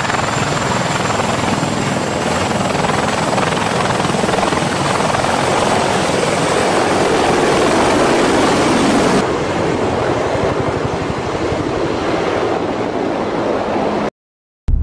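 Sikorsky CH-53E Super Stallion heavy-lift helicopter running, its three turbine engines and rotors making a dense, steady noise with a thin high whine over it. About nine seconds in the sound loses its high end, and it cuts off abruptly shortly before the end.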